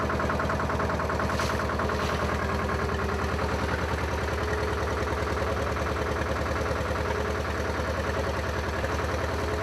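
Fishing boat's engine running steadily under way, a fast even throb with no change in speed.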